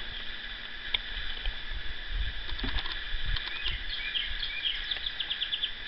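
Outdoor background with trains of rapid high chirping. There is a single sharp click about a second in as the circulator pump's wiring cover is set back in place.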